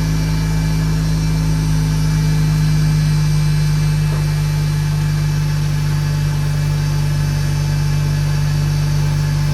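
Mazda RX-8's Renesis two-rotor rotary engine idling smoothly and steadily through a Racing Beat dual-resonator mid-pipe and race exhaust.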